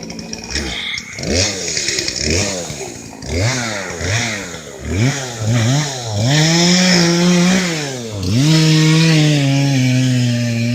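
Gasoline chainsaw blipped up and down in about six short revs, then held at high speed for two longer stretches with a brief drop between them, as when cutting into wood.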